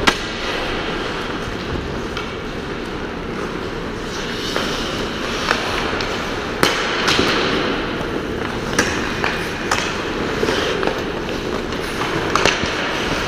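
Ice hockey play on a rink: a steady scraping din of skates on ice, broken by a dozen or so sharp clacks of hockey sticks and pucks striking.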